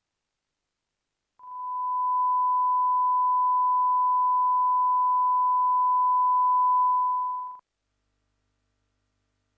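Line-up test tone that goes with colour bars: one unbroken steady beep at a single pitch, about six seconds long, starting about a second and a half in and cutting off abruptly.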